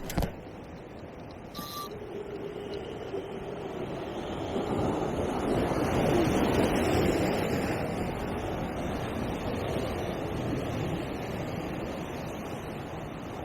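Ocean surf surging onto a rocky shore: a rush of water noise that builds to a peak about six or seven seconds in and then slowly fades. A short click sounds right at the start.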